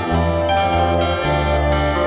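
Instrumental passage of a song: plucked-string notes over sustained low tones, with the notes changing about every half second to second.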